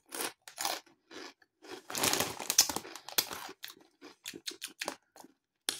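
Crinkle-cut potato crisps being crunched and chewed in the mouth: a run of irregular crackling crunches, thickest about two seconds in, from crisps that are hard and crunchy.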